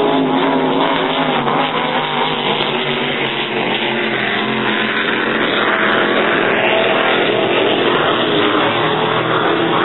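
Offshore racing powerboat engines running flat out as a race boat passes at speed: a steady engine drone with slight rises and falls in pitch, under a loud, even rushing noise.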